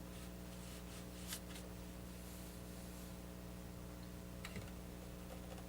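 Quiet room tone with a steady low electrical hum, broken by two faint ticks.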